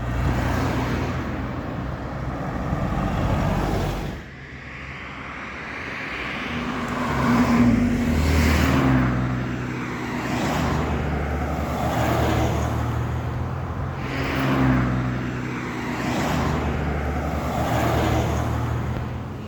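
Motor vehicles running past on a road, engine hum swelling and fading as each one passes, with the loudest pass about eight seconds in.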